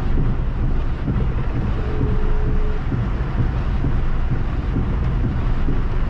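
Heavy rain on a moving car, heard from inside the cabin, over a steady low rumble of road and engine noise. A windscreen wiper sweeps across the glass near the end, and a short steady tone sounds once about two seconds in.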